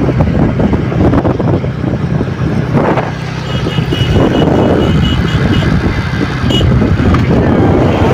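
A motor vehicle's engine running steadily while driving along, with wind buffeting the microphone. A faint high-pitched tone sounds for about a second and a half near the middle.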